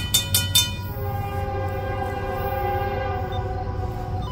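A fast run of sharp ringing strikes stops within the first second. Then a freight locomotive's multi-chime air horn sounds a steady chord, held to the end, over the low rumble of the train.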